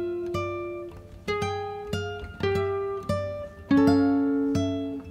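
Background music on a plucked string instrument, like an acoustic guitar: single notes are picked about once or twice a second and each is left to ring and fade.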